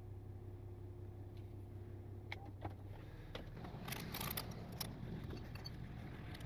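Tow truck idling as its hydraulic wheel lift raises the front of a pickup, with the engine's steady hum turning rougher about three seconds in. Metal clinks and jangles cluster around the middle.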